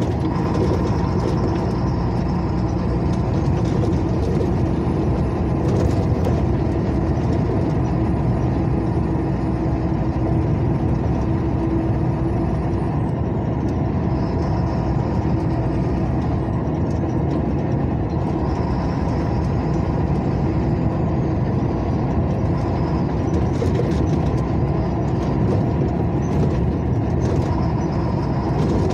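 Steady engine and tyre noise of a vehicle driving along a highway, with a faint high whine that wavers in pitch.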